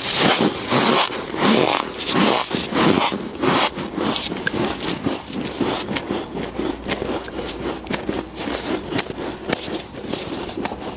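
Soft freezer frost being crunched and chewed, with gloved fingers scraping frost from a chest freezer's walls: a dense run of crackling, crunching scrapes, in bursts about twice a second at first and finer clicks later.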